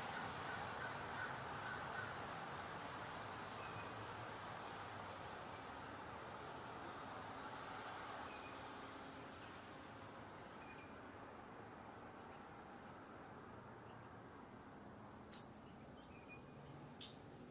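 Faint outdoor ambience: a soft steady hiss that slowly fades, with scattered short, high-pitched bird chips throughout and two sharp clicks near the end.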